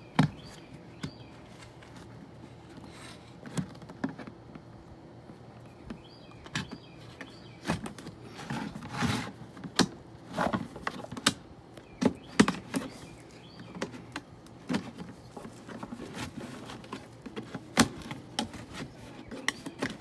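Utility knife blade cutting through a white plastic jug: irregular scraping strokes with sharp clicks and crackles of the plastic, some much louder than others.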